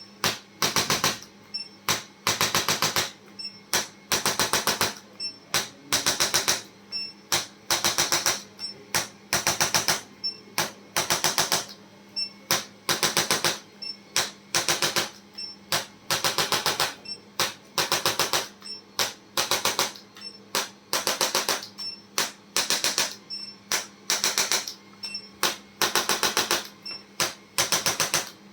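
Rapid mechanical tapping in short bursts, about one burst a second, each burst a fast run of clicks.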